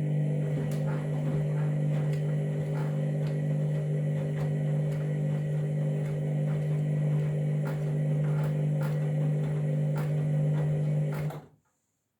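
Candy washing machine running during the start of its cycle: a steady low hum with irregular light clicks over it, which cuts off abruptly near the end.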